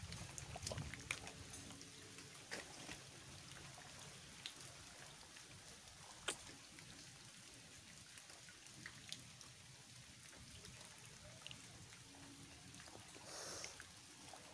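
Faint footsteps through wet mangrove mud: scattered soft clicks and squelches over a quiet background, with a brief rustle near the end.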